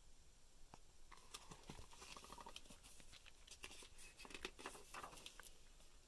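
Faint rustling and crackling of a hardcover picture book's paper pages being handled and turned, with irregular small clicks from about a second in until shortly before the end.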